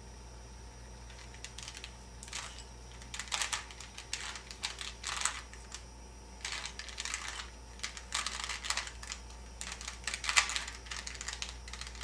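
Plastic Rubik's Cube layers being twisted in quick move sequences, a rattle of clicks coming in two runs with a short pause near the middle.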